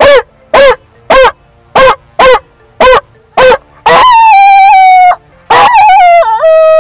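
A man imitating a dog with his voice: seven short yelping barks, about two a second, then two long drawn-out howls, the second dipping in pitch before it ends.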